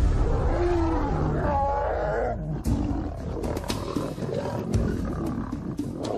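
Young lions growling over a shared meal, the tension of feeding together. The growling is loudest in the first half, followed by quieter sound with sharp clicks.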